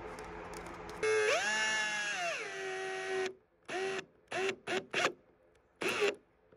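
Power drill driving a screw through a large washer into polystyrene foam board: one run of about two seconds that speeds up, then drops in pitch as the screw pulls in under load, followed by five short trigger bursts that snug the screw down.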